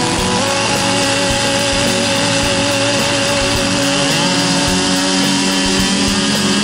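Echo CS-670 two-stroke chainsaw running steadily with the bar held out of the wood, its pitch lifting slightly about four seconds in.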